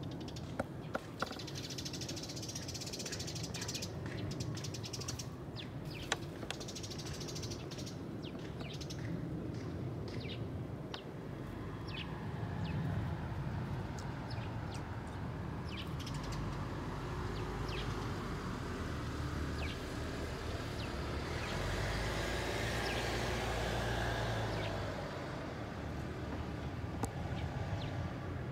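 Birds chirping with many short, scattered calls over a steady low rumble, which grows louder about two-thirds of the way through.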